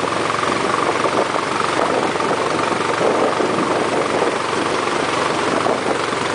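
A truck driving through shallow flood water: steady engine noise mixed with water rushing and splashing around the vehicle.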